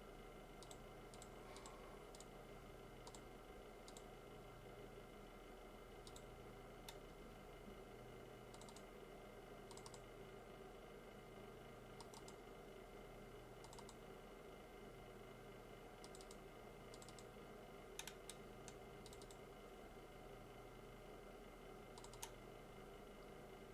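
Near silence: a steady electrical hum with faint, irregular light clicks scattered throughout, a few slightly louder ones near the end.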